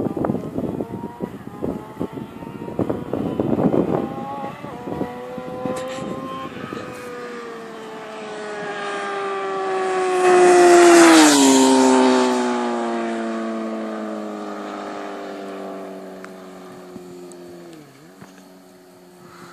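Suzuki GSX-R 600 inline-four sport bike passing at speed: its engine note grows louder, drops sharply in pitch as it goes by about halfway through, then fades away. Gusts of wind on the microphone in the first few seconds.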